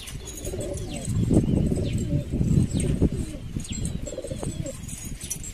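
A loft full of domestic pigeons cooing together, a dense low burbling of many overlapping voices that swells about a second in and eases off near the end, with faint thin chirps above it.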